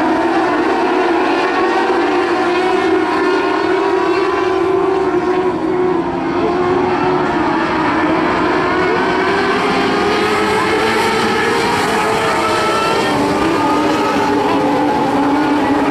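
A field of modlite dirt-track race cars racing together, several engines running at once with their overlapping pitches slowly rising and falling as the cars circle the oval.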